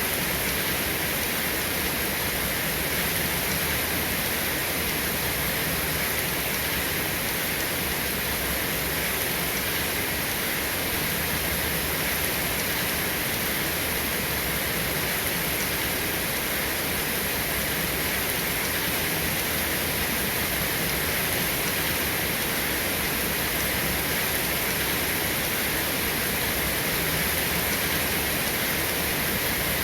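Steady rain falling, an even hiss that holds the same level throughout with no thunder claps.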